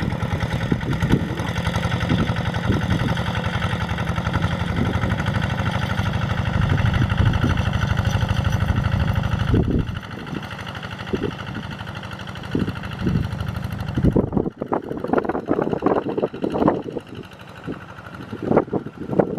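Kubota RD85 single-cylinder diesel of a two-wheel hand tractor running steadily. About ten seconds in it becomes fainter, and over the last few seconds irregular noises come in over it.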